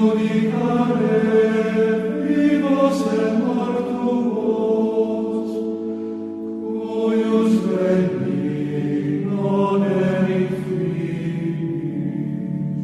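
Church choir singing a slow hymn in long held notes over a steady sustained accompaniment.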